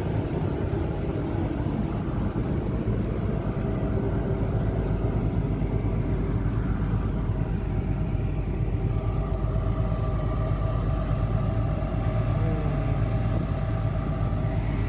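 Steady low drone of a large passenger ship's engines and deck machinery, with a constant hum at a few fixed pitches; a higher hum joins a little past halfway.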